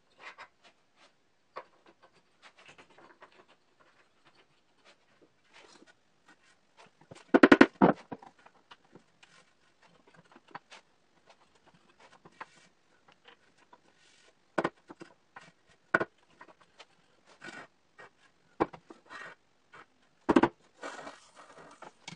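Handling noise of wooden parts and clamps: scattered knocks, clicks and light scraping of plywood and wood blocks, with a loud rattling cluster of knocks about a third of the way in and several sharp single knocks in the second half.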